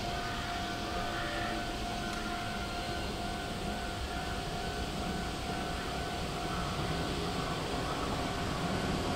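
115-series electric train approaching: a steady running rumble that grows slowly louder, with a constant high-pitched tone held throughout.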